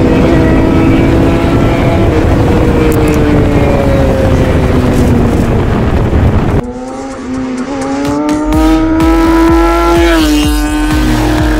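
A racing vehicle's engine at full throttle in a drag race, its note sliding slowly down over a loud low rumble. About six and a half seconds in the sound cuts off abruptly, and the engine is heard pulling hard again, its pitch climbing steadily and then dropping at a gear change near the end.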